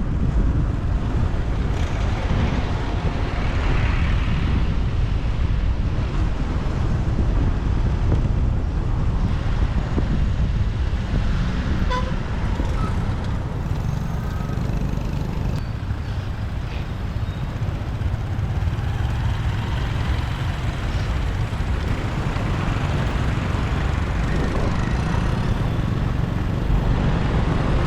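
Motorbike riding through city traffic: a steady low rumble of engine, tyres and wind buffeting the microphone, with surrounding road traffic.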